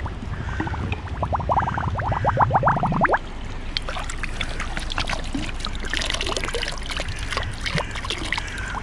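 Brown glass bottle being washed in river water: a fast run of gurgling glugs rising in pitch that stops about three seconds in, then irregular splashing and sloshing.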